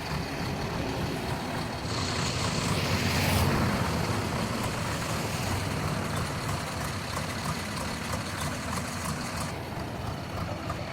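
Heavy diesel engines running steadily under load. About two seconds in the engine note swells and a loud hiss joins it for a second or so, then both settle back to a steady run.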